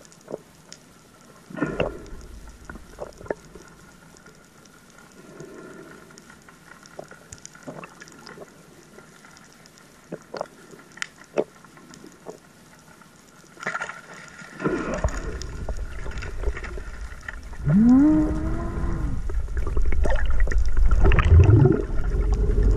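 Underwater sound over a reef: scattered sharp clicks and crackles over a faint steady tone. From about halfway a much louder low rumble of moving water sets in, with a few muffled pitched sounds that rise and fall.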